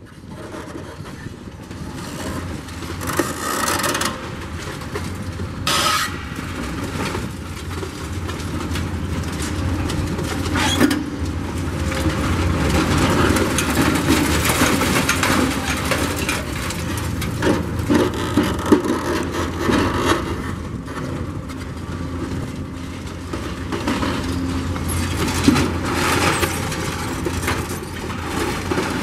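Demolition excavator working concrete rubble: its diesel engine runs steadily under a constant scraping and clatter of concrete and rebar, with several sharp knocks along the way.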